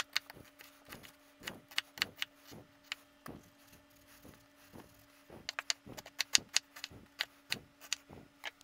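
Chef's knife chopping an onion on a wooden cutting board: a string of sharp, irregular knocks of the blade on the board, a few a second, quickening into a faster run in the second half.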